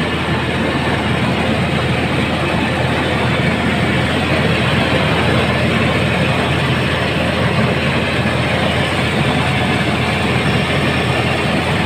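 Mobile rice mill running steadily, its engine and milling machinery making a loud, even mechanical noise while milled rice streams down the outlet chute. The mill is on the final pass that turns out finished, stone-free rice.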